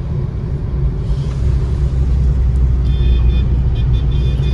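Maruti Suzuki Wagon R driving through traffic: a steady low rumble of engine and road noise, growing a little louder about a second or two in.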